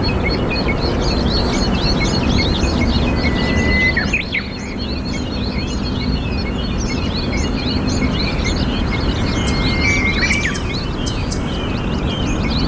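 Many small birds chirping in quick, overlapping calls, with a couple of short level whistles, over a steady rushing background noise.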